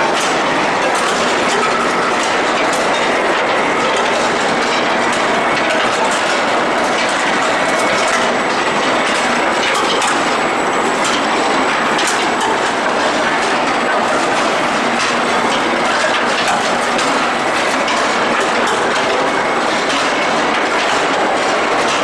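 Steel-ball forging and rolling line machinery running: a steady, loud mechanical rattle and rumble, full of quick small metallic clicks.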